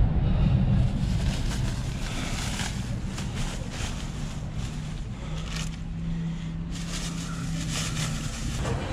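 Low, steady rumble with wind noise, like a vehicle in motion, with a steady hum that starts about five seconds in and stops about three seconds later.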